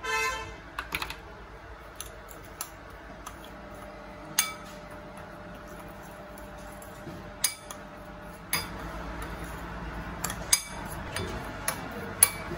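A steel spoon clinking and scraping against a bowl while stirring a thick spice marinade: a ringing clink at the very start, scattered sharp clinks, and steadier scraping in the last few seconds.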